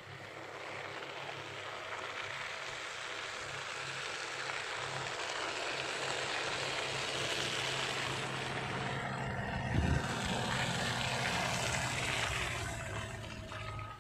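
A small hatchback car driving up a wet, slushy road and passing close by: engine and tyre hiss build over several seconds, stay loud, then fade near the end. A single thump about ten seconds in.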